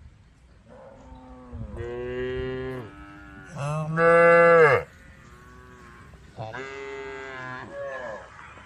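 Cows mooing: about four long calls one after another, the loudest about four seconds in.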